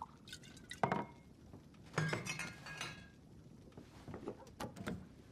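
Glassware clinking and knocking as a whiskey glass and bottle are handled on a bar: a sharp knock about a second in, another at two seconds with a short ring, then scattered small clinks.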